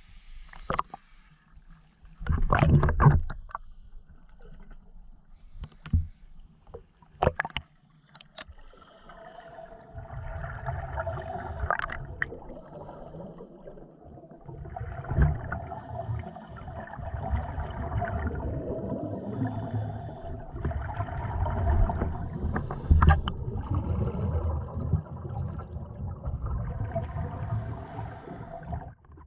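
Scuba regulator exhaust bubbles heard underwater through a GoPro housing, rumbling in stretches of a few seconds as the divers breathe out. A loud rush of water comes about two seconds in, and a few sharp knocks on the housing come a little later.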